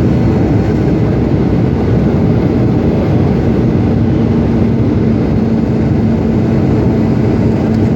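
Boeing 757-200 airliner's engines and airflow as a steady, dense rumble, with a steady hum joining about three and a half seconds in.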